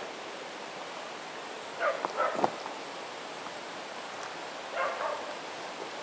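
A dog barking: a quick run of short barks about two seconds in, then another bark about five seconds in, over a steady background rush.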